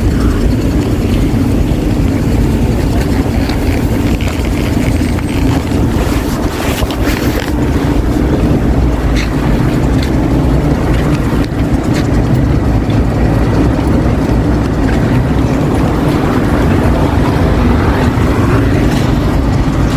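Loud, steady city traffic noise: a dense low rumble of passing cars, trucks and motorcycles, with a few faint clicks along the way.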